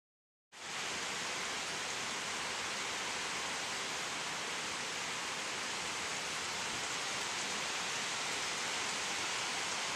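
Steady, even hiss that starts about half a second in and holds level throughout.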